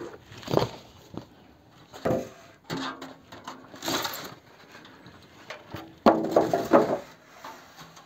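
Polystyrene foam packing end caps being pulled off a steel mid-tower PC case: foam rubbing, scraping and squeaking against the case, with light knocks, in several short bursts. The loudest burst comes about three-quarters of the way through.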